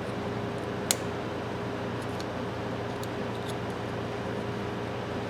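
Steady mechanical hum in a small room, with one sharp metallic click about a second in and a few faint ticks later as the greasy ratchet's parts are handled.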